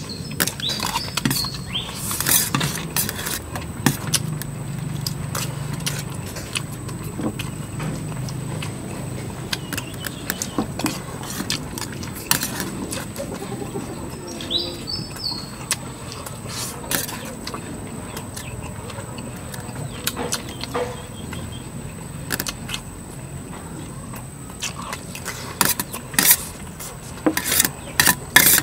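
Metal spoons clinking and scraping against plates in irregular sharp clicks, denser near the end, as people eat. A bird chirps briefly about a second in and again midway.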